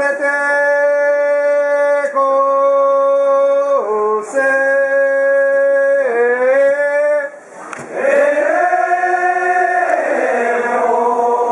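Singing in a chant-like style: long notes each held for about two seconds, stepping between pitches, with a short break about seven and a half seconds in.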